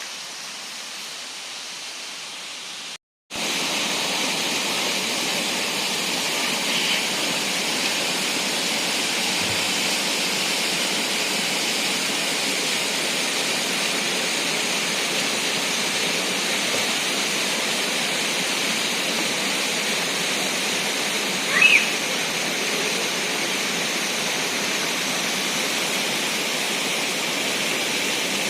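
Steady rushing of falling water from a waterfall. It is heard faintly at first, then, after a sudden break about three seconds in, loud and close. One brief high chirp is heard late on.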